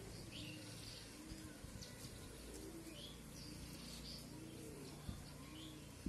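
Doves cooing: a run of short, low, arched notes about once a second, with small birds chirping higher up.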